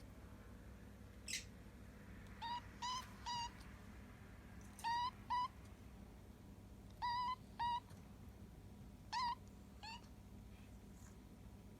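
A hungry kitten giving its odd, squeaky begging cry for food: about nine short, high-pitched calls, mostly in pairs and threes.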